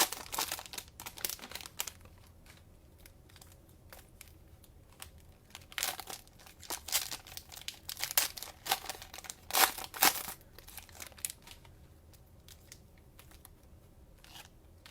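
Cellophane wrappers of trading-card cello packs crinkling and tearing open in short bursts, busiest in the middle.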